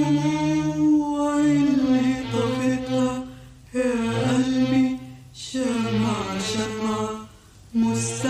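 Classical Egyptian Arabic song: long, wavering, ornamented held notes sung in phrases, each broken off by a short pause.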